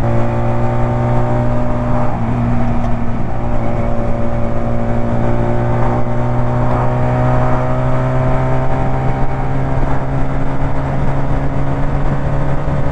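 Two-cylinder 125 cc chopper motorcycle engine pulling steadily under load in top gear, its pitch rising slowly as the bike gains speed.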